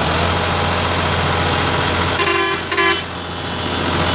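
Sonalika DI-50 RX tractor's diesel engine running steadily as the tractor drives, with two short horn toots a little over two seconds in.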